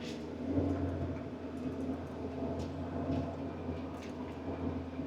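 Forestry harvester's engine running steadily, a low even drone with scattered light clicks and ticks.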